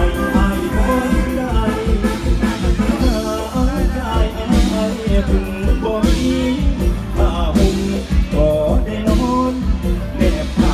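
Live Thai mor lam band music: a singer's voice over a full band with a strong bass beat.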